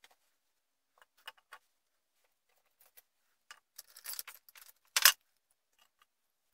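Hand tools (two screwdrivers and a pair of flush cutters) being set down and handled on a paper-covered desk: scattered light clicks and rustles, with one sharp knock about five seconds in.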